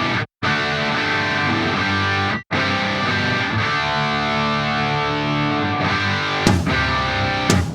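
Background music with distorted electric guitar, cutting out briefly near the start and again about two and a half seconds in.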